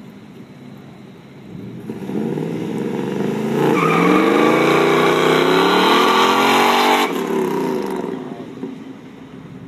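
A sports car's engine launching hard from a standing start and accelerating, its note climbing in pitch with a brief drop at a gear change about three and a half seconds in. The engine is loudest for the next few seconds, then falls off abruptly about seven seconds in and fades away.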